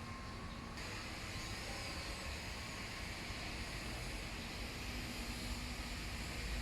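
Steady mechanical whir with a low hum and a hiss that grows louder about a second in.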